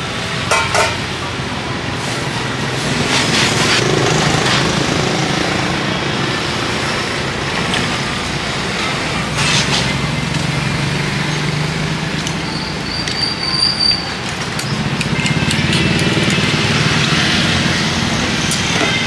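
Steady street traffic noise, with a few sharp clinks and clatters of stainless steel bowls being stacked into a plastic basin.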